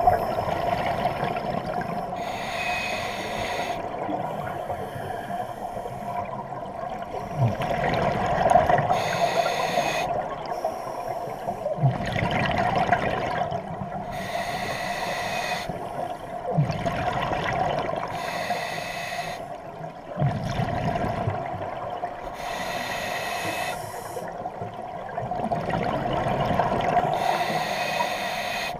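Scuba diver breathing through a regulator underwater: about eight bursts of bubbling exhaled air, one every three to four seconds, over a steady hum.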